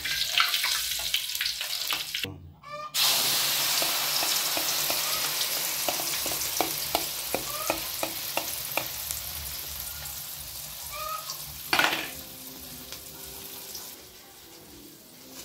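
Hot oil sizzling and popping in a steel wok as fried tempe is lifted out with a perforated skimmer. After a brief cut, an egg frying in the oil sizzles loudly with scattered pops, the sizzle slowly easing off. There is a short clatter about twelve seconds in.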